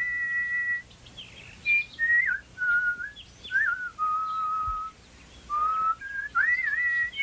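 Whistled bird-like song: clear held notes linked by quick upward and downward glides, in short phrases with a brief pause about five seconds in.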